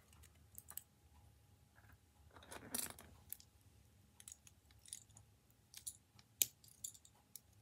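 Small plastic toy bricks faintly clicking and tapping as they are handled and snapped together, with a brief rustle about two and a half seconds in.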